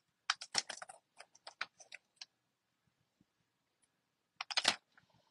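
Scissors snipping ribbon: a run of small quick clicks over about two seconds, then another brief cluster of snips near the end.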